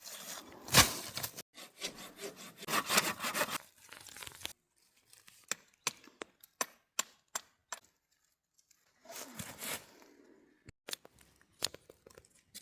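Rasping scrapes on wood for about four seconds, then a run of sharp separate taps and clicks, a short pause, another brief scrape and a few more taps near the end.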